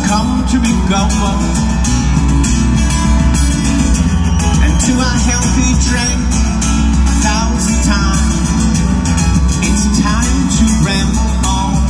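Live rock band playing: a male lead singer sings over drums and electric guitar.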